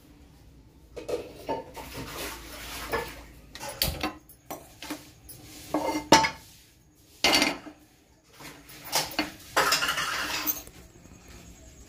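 Metal kitchen utensils and dishes clinking and scraping in a string of knocks and scrapes, with sharp clanks about four and six seconds in.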